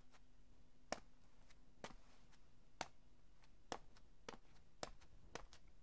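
Light, sharp taps over near silence, about one a second at first and coming quicker, about two a second, from around four seconds in.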